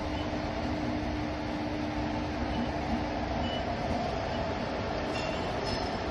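Indian Railways electric locomotives running past in a convoy: a steady rumble with a steady hum from the locomotives.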